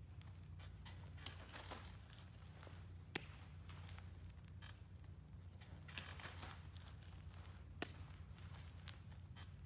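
Faint shuffling and rustling of a catcher moving in his gear, with a sharp click about three seconds in and another about eight seconds in, over a steady low hum.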